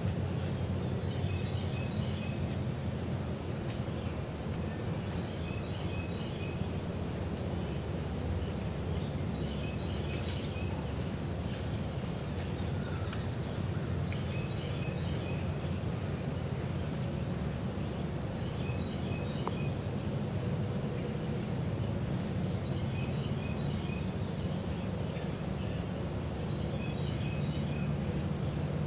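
Summer woodland dawn ambience: a steady, high insect drone and a short high chirp repeating about once a second, with a small bird phrase repeating every couple of seconds, over a low background rumble.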